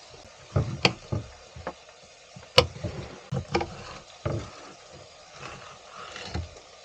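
Kitchen knife chopping a long green pepper on a wooden cutting board: about ten sharp knocks of the blade striking the board, unevenly spaced with short pauses.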